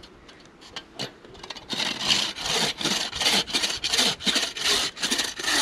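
Folding wooden buck saw cutting across a wooden spoon blank. After a couple of light knocks as the blade is set, quick, regular rasping strokes start a little under two seconds in and keep going.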